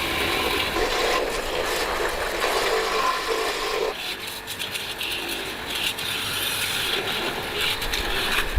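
Scraping and rattling from hand work on parts in a repair, with many short clicks; the sound thins out about halfway through.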